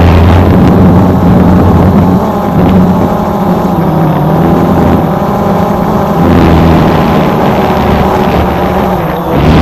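Drone's propellers and motors running steadily, a loud hum of several steady tones over a whooshing noise.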